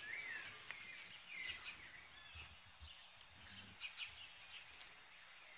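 Faint birdsong: short, high chirps and whistled calls coming every second or so.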